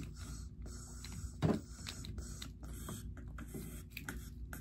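Plastic wrestling action figures being handled and knocked together: a run of small clicks and taps, with one louder knock about one and a half seconds in, over a low steady hum.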